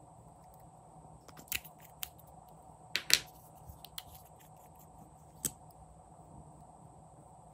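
Sharp plastic clicks and taps from a red makeup pen and its cap being handled, a handful scattered through, the loudest a close double click about three seconds in, over a faint steady hum.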